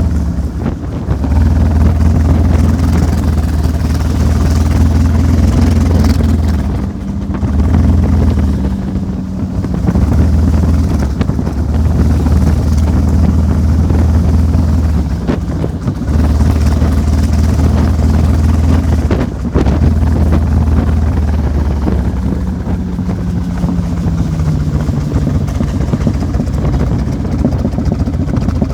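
An engine running steadily under heavy wind noise on the microphone, its hum dropping a little in pitch near the end.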